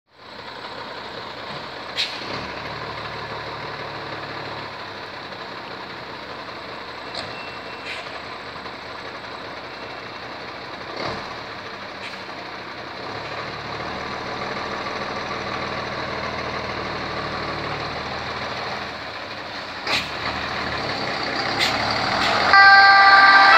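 Iveco Baribbi 190/26 fire engine's diesel engine running, with a few sharp clicks. The engine grows louder over the second half as the truck pulls out of the bay. Near the end a two-tone siren starts and becomes the loudest sound.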